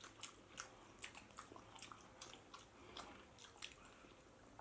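Faint, close-up chewing of pork biryani with rice: soft, irregular wet clicks and smacks of the mouth at a mouthful.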